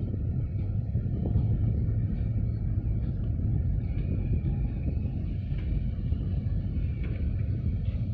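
Wind buffeting the microphone: a steady low rumble that flickers unevenly.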